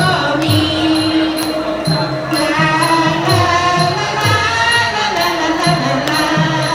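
Lao dance music with a steady low drum beat about twice a second, sustained melody lines and a light high-pitched cymbal tick on the beat.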